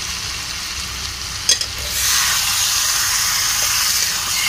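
Raw chicken pieces sizzling in hot oil and fried masala in a non-stick pan as a metal spatula stirs them. There is a single knock about a second and a half in, and the sizzle grows louder about two seconds in as the chicken is turned through the masala.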